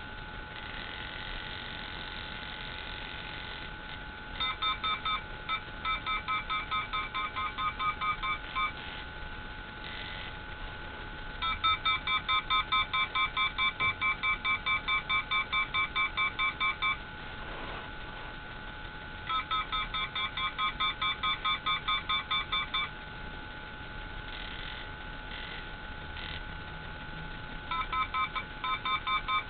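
Handheld RF detector giving its audible alert: bursts of rapid electronic beeps, about five or six a second, each burst lasting several seconds with pauses between, over a steady high electronic hum. The beeping is taken as the meter picking up strong radio-frequency signals near the body.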